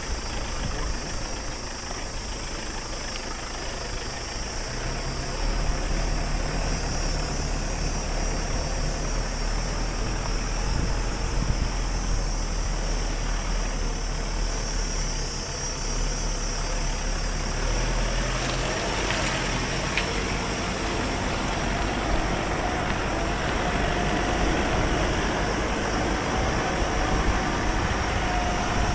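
A car's engine and road noise: a steady low rumble throughout.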